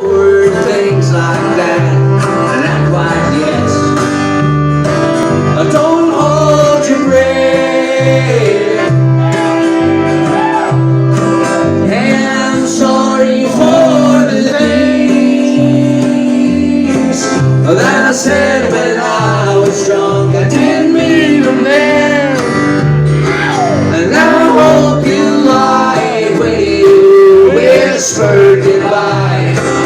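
An acoustic country string band playing live: strummed guitar over a steady plucked bass line, with a sliding melody line on top.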